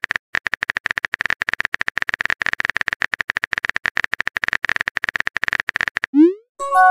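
Rapid, evenly spaced keyboard-tap clicks of a phone texting sound effect as a message is typed. They stop about six seconds in, followed by a short rising swoosh as the message is sent and a brief chime near the end.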